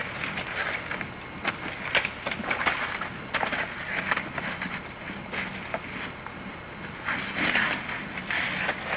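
Footsteps crunching and rustling irregularly through dry fallen leaves and twigs on the forest floor, with scattered sharp snaps.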